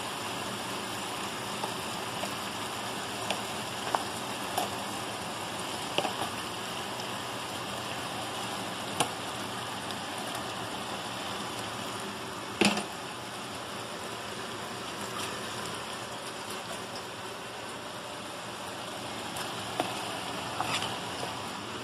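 Spiced masala steadily sizzling and bubbling in a non-stick frying pan as raw chicken pieces are added. Scattered knocks come from the chicken and a metal spatula hitting the pan, the loudest a little past halfway.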